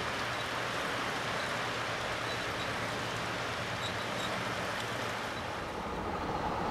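G-scale model freight train of tank cars and hoppers rolling along garden track: a steady rushing noise of many wheels on rail, changing briefly near the end.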